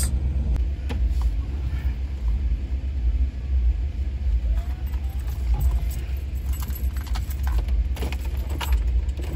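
Truck engine idling, heard from inside the cab as a steady low rumble, with a few light clicks and rattles, more of them near the end.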